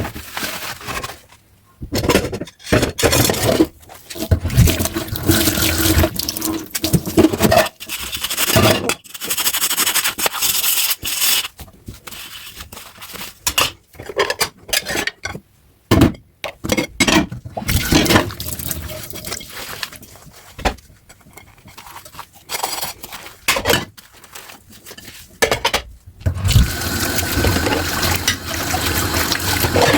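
Water splashing and running at a kitchen sink as dishes are washed, coming in irregular bursts. Near the end it becomes a steadier stream from the tap.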